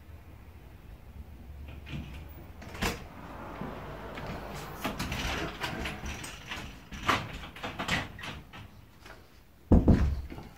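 A front door and its metal mesh security screen door being opened and shut: a string of latch clicks, knocks and rattles, then a heavy thump near the end.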